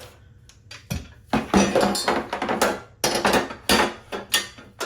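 Metal TV wall-mount parts and hardware being handled: a run of loud clinks and rattles, several in quick succession from about a second in.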